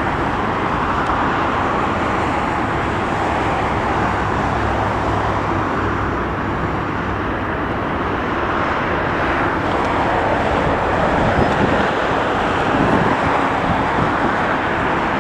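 Steady roar of road traffic mixed with the distant jet engines of a United Boeing 787 on its takeoff run, swelling a little as it lifts off.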